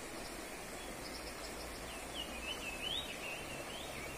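Shallow rocky stream running steadily, with a bird singing a short, wavering high-pitched phrase from about two seconds in. A few faint high chirps come just before it.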